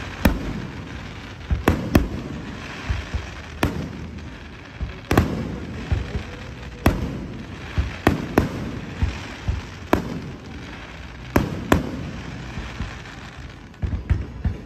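Aerial firework shells bursting overhead: a string of sharp bangs at uneven intervals, roughly one every second or so, with crackling between them.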